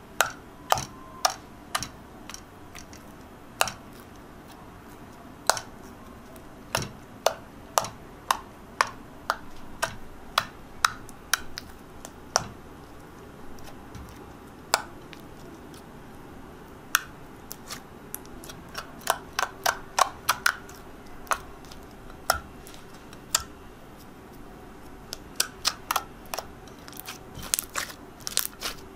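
Yellow fluffy slime being kneaded and pressed by hand in a glass dish, giving off many sharp, irregular clicks and pops, bunched in quick runs in places. The slime has just set to a fluffy, no longer sticky texture.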